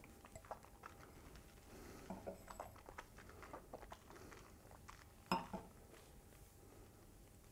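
Faint mouth and lip sounds of a taster working a sip of bourbon, with small clicks as a tulip tasting glass is tilted and handled. One sharper click comes about five seconds in.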